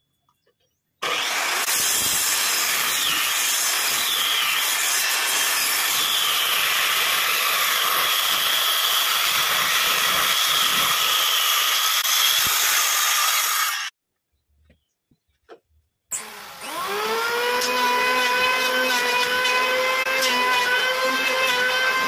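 Handheld electric circular saw cutting through a thick wooden block; the noise starts about a second in and cuts off abruptly after about thirteen seconds. After a short silence an electric hand planer spins up with a quickly rising whine and runs steadily.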